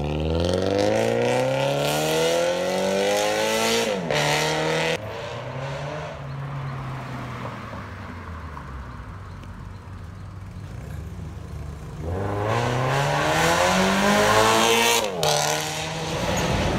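Toyota FT86's flat-four engine through an aftermarket valved exhaust, accelerating hard with a rising note and shifting up about four seconds in, then fading as the car pulls away. A second loud run climbs again from about twelve seconds in and shifts up near fifteen seconds.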